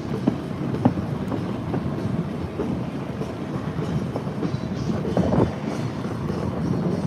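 Distant fireworks display: a continuous low rumble of overlapping bursts, with scattered sharp pops and crackles, a couple of them louder early on.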